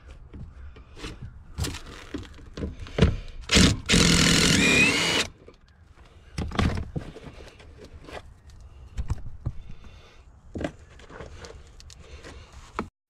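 A power tool runs for about a second and a half, about four seconds in, spinning off a fastener at the top of a rear shock absorber. Scattered clicks and knocks of tools and metal parts come before and after it.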